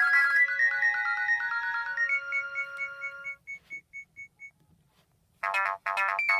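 Nokia 216 ringtones played on a Nokia 7100 Supernova phone. An electronic melody of held notes ends with one high note repeating and fading away. After about a second of silence, the next ringtone starts with fast, dense chords.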